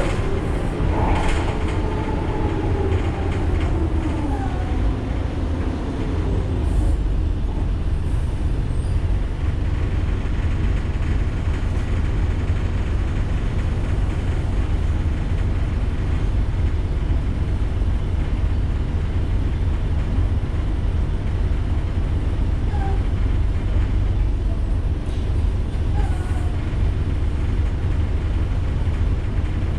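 Ikarus 435 articulated bus under way, heard from inside the cabin: a steady low rumble of the diesel engine and running gear. In the first few seconds a whine slides down and back up in pitch, and a few faint squeaks come later.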